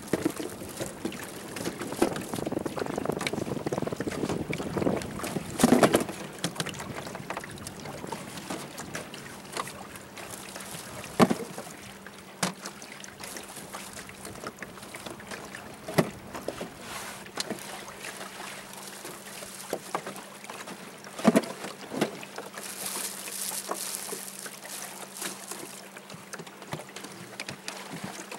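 Lake water lapping against a small boat's hull, with a sharp slap or knock every few seconds. The wash is stronger in the first few seconds.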